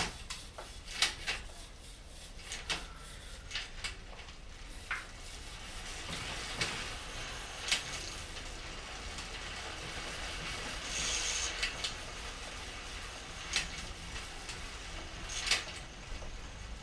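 Hands working a folding bike's crank and rear wheel in a repair stand, testing the reassembled Torpedo Duomatic coaster-brake hub: scattered sharp clicks and knocks, with several seconds of hiss in the middle.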